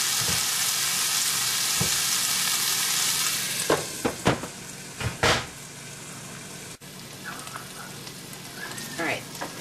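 Green beans and garlic sizzling in hot olive oil in a sauté pan. A few seconds in, several sharp clinks ring out as a glass lid is set on the pan, and the sizzle turns much quieter under the lid.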